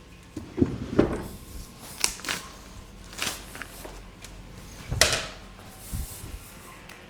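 A series of irregular knocks and clatters of objects being handled, about six in all, the loudest about five seconds in.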